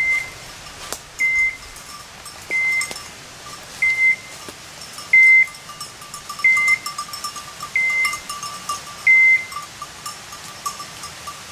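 Hunting dog's electronic beeper collar giving a short, high beep about every 1.3 seconds, eight times, then stopping near the end. A dog bell jingles faintly between the beeps.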